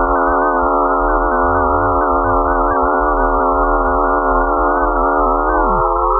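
A dense electronic drone of many steady, slightly wavering pure tones held together. Near the end one tone drops sharply in pitch while the higher tones begin to rise.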